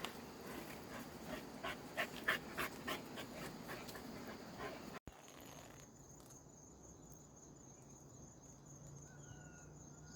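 A dog panting in quick short breaths for about five seconds, cut off abruptly. Then crickets chirping steadily in a high drone, with a short bird call near the end.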